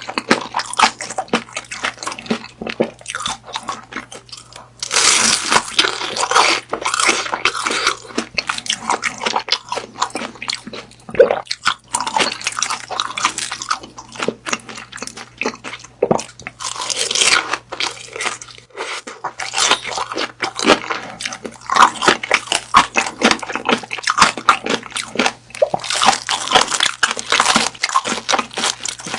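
Close-miked eating of grilled beef sausage: biting and chewing with many quick, crackling crunches and wet mouth clicks, thickening into denser spells three times.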